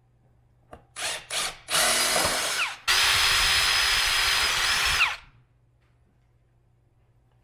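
Power drill drilling out the plastic rivet pins of a plastic Jeep fender. After a click come two quick trigger blips, then two longer runs with a steady whine, each winding down in pitch as the trigger is released.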